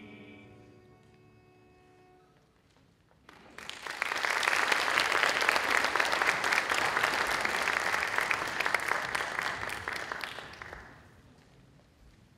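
The final held chord of a sung stage number fades out, then a theatre audience applauds. The clapping starts about three seconds in, lasts around seven seconds and dies away near the end.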